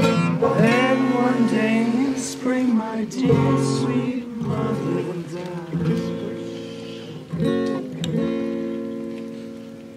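Acoustic guitar strumming chords in a folk song. The last chords are left to ring and fade away over the final two seconds.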